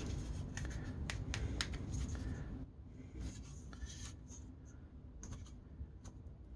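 Articulated plastic leg parts of an Acid Rain Marine Waterstrider toy mech clicking and rubbing as they are handled and posed: a quick run of sharp clicks in the first couple of seconds, then softer, sparser clicks.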